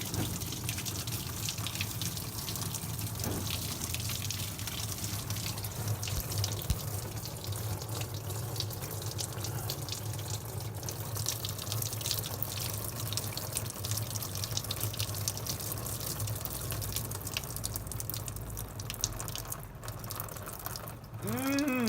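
Old engine coolant draining in a steady stream out of the disconnected lower radiator hose of a 1992 Mitsubishi Delica's 4D56T turbo diesel, splattering and trickling as the cooling system is emptied.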